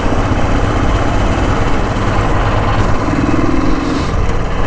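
Royal Enfield Thunderbird X's single-cylinder engine running steadily as the motorcycle is ridden, with road noise.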